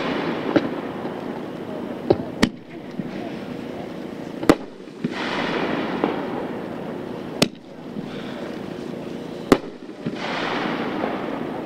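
Pyro Demon Raging Terror, a 3-inch consumer (1.4G) super finale cake, firing single shells that burst with sharp reports every two to three seconds, with swells of rushing noise between the shots.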